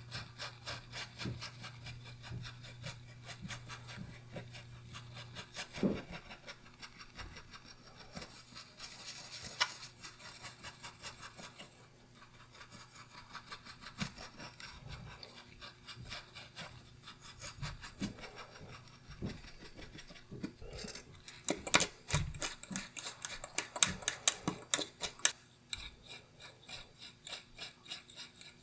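Small bristle brush scrubbing a watch movement's steel main plate and brass wheels, a rapid scratchy rubbing of bristles on metal. It comes in quick strokes, with a louder flurry about three-quarters of the way through.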